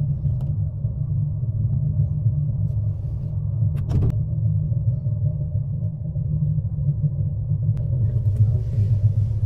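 Steady low rumble inside an aerial gondola cabin riding on its cable, with one sharp click about four seconds in.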